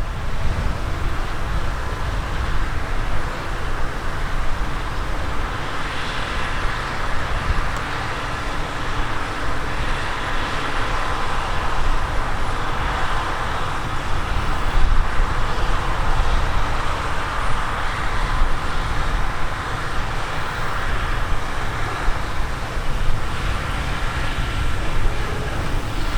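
Large harvest machinery running steadily: a continuous engine and mechanical drone with a faint whine.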